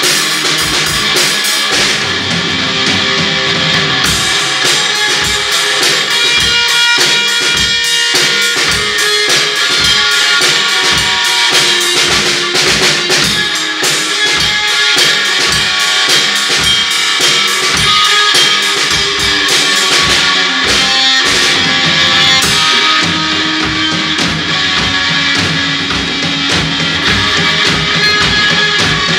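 Garage rock band jamming an instrumental: electric guitar, bass and a drum kit, with the kick drum keeping a steady beat.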